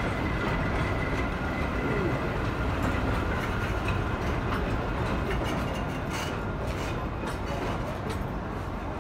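Heritage wooden passenger carriages rolling past, a steady rumble and clatter of their wheels on the rails, easing off slightly toward the end.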